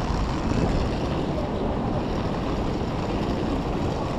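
Steady city street ambience: a constant low traffic rumble under an even hiss.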